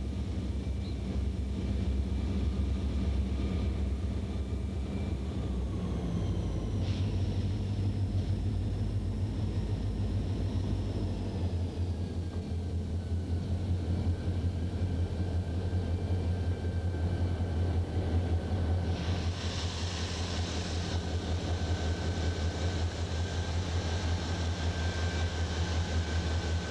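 Soo Line diesel freight locomotives passing close by, their engines running with a deep steady drone. Higher whining tones slide down in pitch as the lead unit goes by, and the drone shifts about halfway through as the trailing units pass. There is a short hiss about twenty seconds in.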